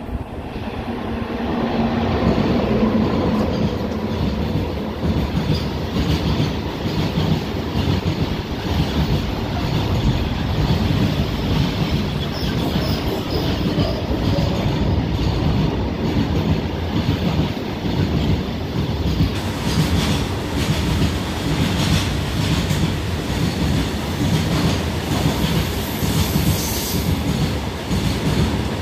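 A WAG-9 electric locomotive passes close, then a long string of loaded BOXN open wagons rolls by with a steady heavy rumble and rapid clattering of wheels over rail joints. A faint high wheel squeal comes in near the end.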